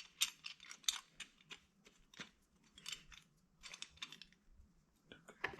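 Light, irregular clicks and scrapes as short-throw shifter parts are handled and threaded together by hand.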